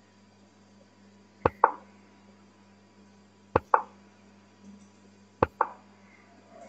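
Online chess move sounds: three times, a sharp mouse click followed a split second later by the site's short wooden 'plop' as a piece lands, about two seconds apart, over a faint electrical hum.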